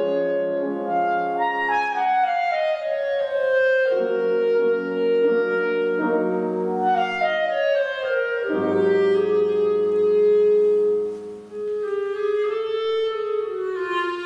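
Clarinet playing a classical solo line with grand piano accompaniment: twice the clarinet runs downward and settles on a held note, over sustained piano chords.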